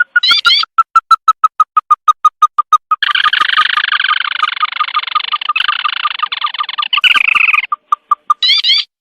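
Recorded crake (tikusan) calls played as a bird lure: a fast run of short, clipped notes that speeds up, with short rising calls near the start and again near the end. From about three seconds in the calls pile up into a dense, layered chorus for several seconds, then thin back out to single notes.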